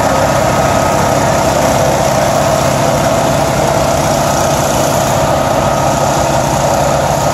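Fire engine's diesel engine running steadily, driving its water pump, with a steady whine over it.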